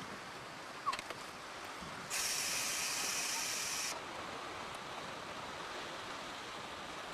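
Steady running noise of a moving passenger train, heard from inside the carriage, with a click about a second in. From about two seconds in, a loud hiss starts and stops abruptly after about two seconds.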